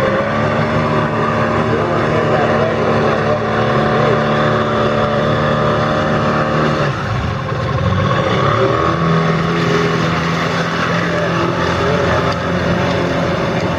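Motorboat engine running steadily over the river. Its note breaks off about seven seconds in and settles at a different, lower pitch a couple of seconds later.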